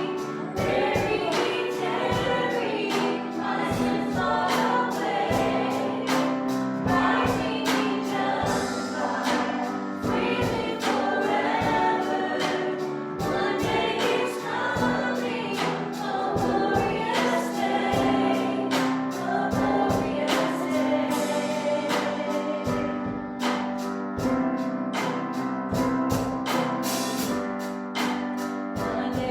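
Live worship band and singers performing a gospel worship song: voices singing together over sustained keyboard-like chords and a steady drum beat.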